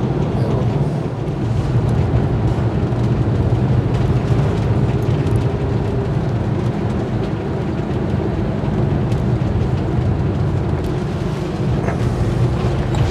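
Diesel motorhome driving at a steady pace, its engine and tyre noise a continuous low rumble heard from inside the cab.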